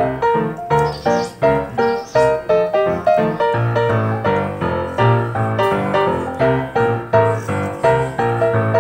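Background piano music: a steady, even run of notes at about two a second, with lower bass notes coming in more strongly about three and a half seconds in.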